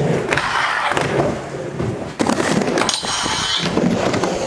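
Skateboard wheels rolling and clattering on a backyard mini ramp, with a sharp knock about two seconds in and a short high scraping hiss near the three-second mark.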